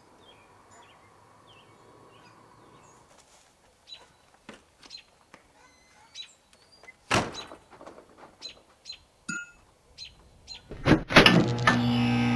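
Birds chirping in quiet outdoor air, then a scattered string of sharp clicks and knocks with one loud thump about seven seconds in. Near the end a quick cluster of crackling clicks gives way to a steady electric hum.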